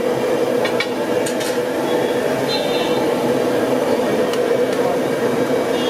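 A steady droning background din with no clear rhythm, with a few light clicks and clinks from hands filling samosa pastry cones from a steel kadai.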